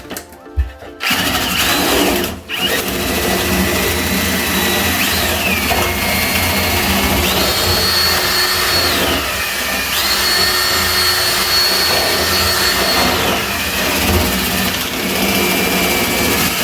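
Power drill spinning a rotary dryer vent cleaning brush on extension rods up the vent duct. The motor starts about a second in, stops briefly near two seconds, then runs on with its whine rising and falling several times as the speed changes, until it cuts off near the end.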